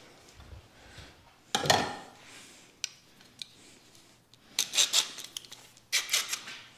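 Metal bar clamps being handled and fitted onto a glued-up wooden board. A loud scraping clunk comes about one and a half seconds in, then a couple of single clicks, then two short bursts of rapid metallic rattling near the end.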